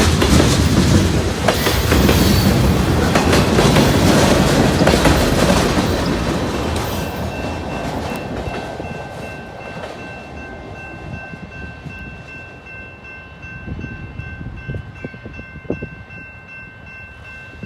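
Freight train cars rolling past on the rails with wheel clatter, loud at first and then fading away over the second half as the train moves off. A thin steady high tone comes in about halfway through.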